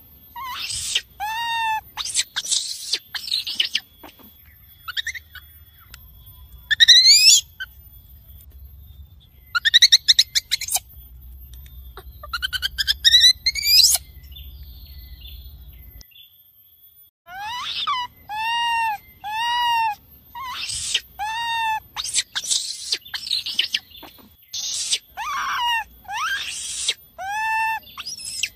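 Baby monkey calling its mother and troop: a run of short, high, arched calls, each rising then falling, repeated about once a second, broken in the middle by harsher screams and upward-sliding squeals, with a short pause about two-thirds of the way through.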